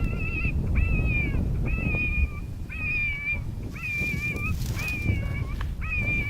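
Electronic predator call playing a looped distress sound: a run of about seven high, whining cries, roughly one a second, each under a second long and falling slightly at the end. Heavy wind rumbles on the microphone underneath, easing a little about two seconds in.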